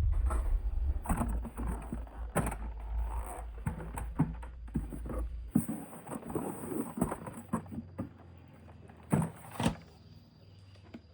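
Plastic toy vehicles being handled: scattered clicks and knocks, two louder ones near the end, over a low rumble that fades and stops about halfway through.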